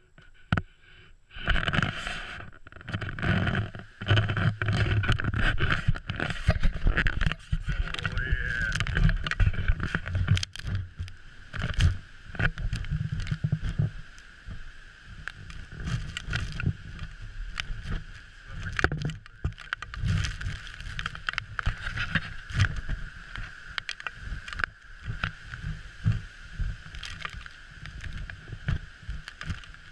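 Storm wind and heavy seas rushing past a large ship, with gusts buffeting the microphone; the low buffeting is heaviest in the first half.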